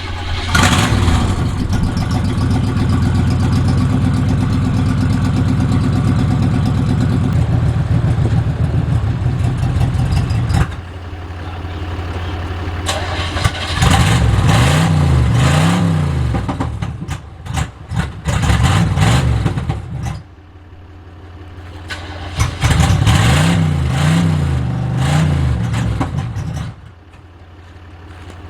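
1976 GMC motorhome's engine running with a steady drone for about ten seconds, then, after abrupt cuts, revved up and down several times in two separate stretches.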